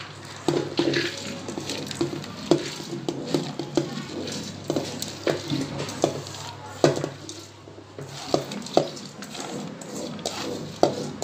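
Soaked mixed lentils pouring and sliding from a steel bowl into an empty pressure cooker, a patter of grains on the pot, with a few sharper knocks of the bowl and pot.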